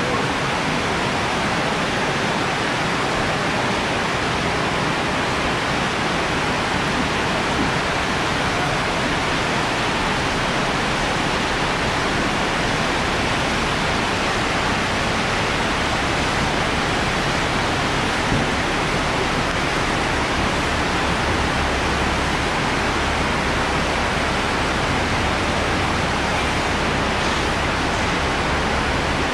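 Heavy rain pouring down, a loud steady hiss with no letup. A low rumble joins underneath about two-thirds of the way through.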